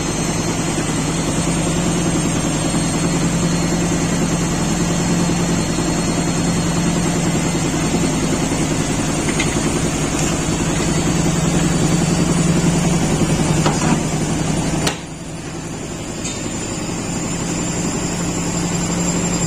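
IFB 6.5 kg washing machine running with a loud steady mechanical drone and rumble, the noise of a drum overloaded with clothes. About fifteen seconds in, the sound drops suddenly to a quieter running level.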